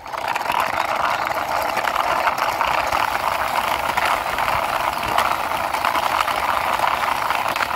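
Plastic toy cement mixer truck pushed by hand along rough concrete, its wheels rolling with a steady gritty rattle.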